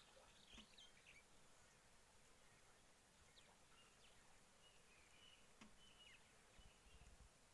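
Near silence: faint outdoor ambience with scattered high-pitched bird chirps.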